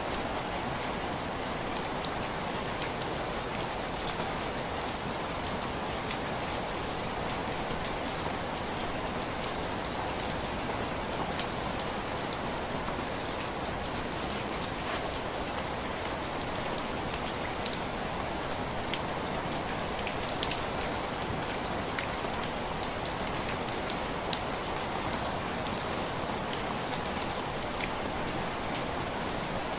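Steady rain tapping on window glass: an even hiss of rainfall with many sharp, scattered drop ticks, a few standing out louder.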